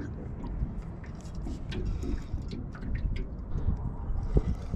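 Wind rumbling on the microphone, with light water lapping and small ticks against the hull of a drifting small boat, and a low thump about four seconds in.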